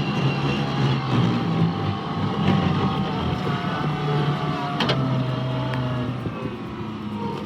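Skid steer engine running steadily as the machine drives along, with a wavering whine over it and one sharp clank about five seconds in.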